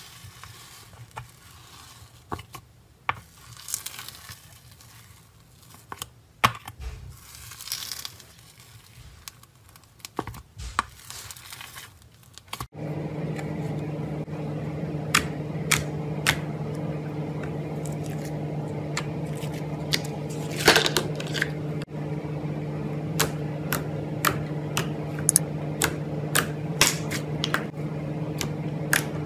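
Slime being worked by hand and spoon: soft crackles and tearing sounds as a stringy slime is stirred, then, after a cut about halfway through, many sharp clicks and pops as a thick pink slime is pressed and folded. A steady low hum runs under the second half.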